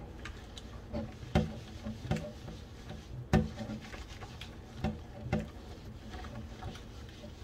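A stainless steel frying pan being scrubbed with a netted dishcloth in soapy water to lift burnt-on residue: wet rubbing and swishing broken by irregular clunks, the loudest about three seconds in.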